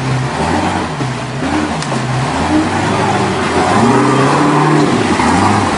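Truck engine revving, its pitch rising and falling several times, loudest about two thirds of the way through.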